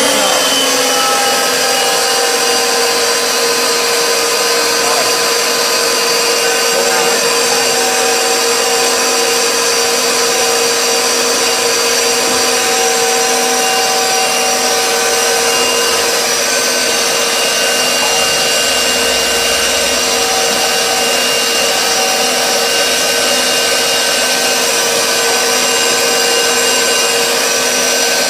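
Asada Pro 25 bolt threading machine's 1140 W electric motor running steadily while its die head cuts thread onto a round steel rod: a steady machine whine whose pitch drops slightly in the first second, then holds.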